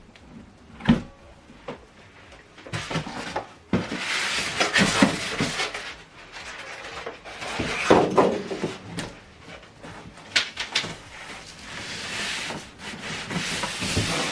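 Packaging and boxed components being handled during an unboxing: rubbing and rustling with several knocks, the sharpest about a second in and around the fourth and eighth seconds.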